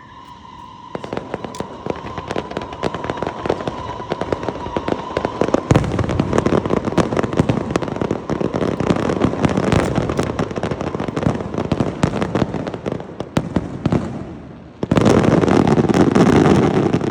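Fireworks going off in a dense, rapid crackle of many small bursts. A steady whistle sounds through the first few seconds. The crackle thickens after about six seconds, dips briefly, then breaks into its loudest, densest barrage near the end.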